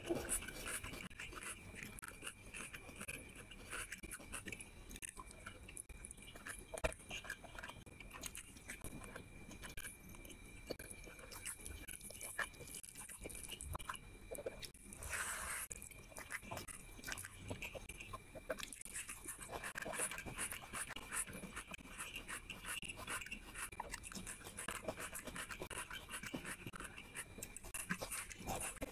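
Close-miked eating by hand: fingers squishing rice mixed with curry, then wet chewing and lip smacks as handfuls go into the mouth.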